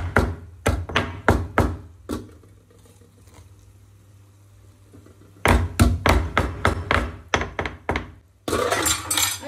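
Stone pestle pounding ginger and garlic in a small stone mortar, a run of sharp thuds at about three a second. The strokes stop for about three seconds, start again for another run of thuds, and end with a second of rougher noise.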